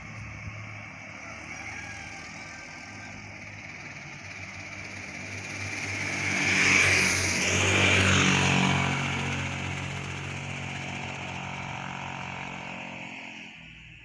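A motorcycle riding up the road and passing close by: its engine grows louder, peaks about seven to eight seconds in with a drop in pitch as it goes past, then fades away.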